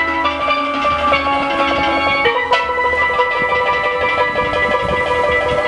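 Two steel pans played with sticks: quick runs of struck, ringing metallic notes over held chords, the harmony changing about two seconds in.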